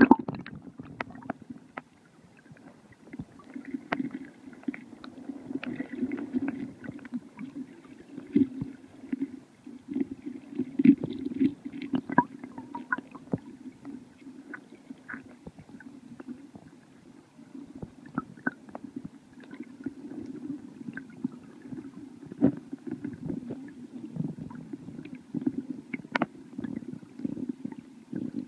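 Flowing river water heard underwater through a submerged waterproof case: a steady, muffled low rumble and gurgle, with scattered sharp clicks and ticks throughout.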